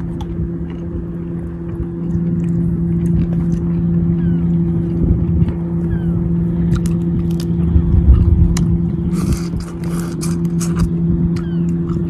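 Steady low motor hum, with crackling clicks of shrimp shells being peeled by hand and chewing, thickest in the second half.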